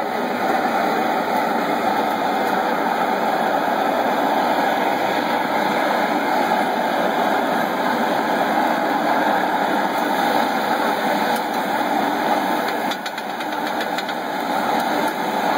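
Steady, even roar from a taco stand's cooking station, where open gas flames heat an al pastor spit and a flat-top griddle. A few light clicks sound near the end.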